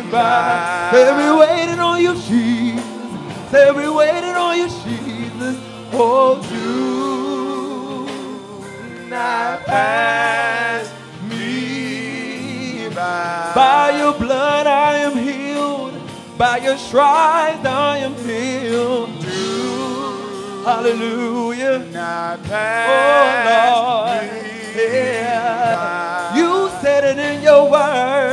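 Gospel singing: a voice, or voices, with a marked vibrato, sung in long phrases over held low accompaniment notes.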